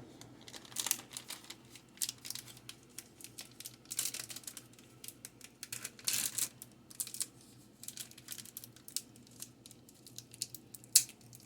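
A packet of cheese being handled and torn open: irregular crinkling, crackling and tearing of the wrapper, with a sharp click near the end.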